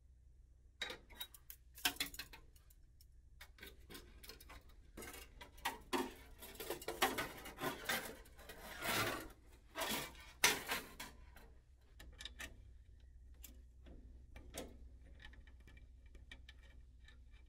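Workshop clatter of hand tools and small metal parts: an irregular run of clicks, taps and knocks, densest in the middle and thinning out towards the end, over a faint low hum.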